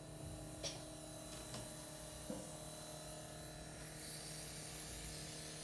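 A steady electric hum with a faint hiss, with a few light clicks of handling about half a second, one and a half, and two and a quarter seconds in.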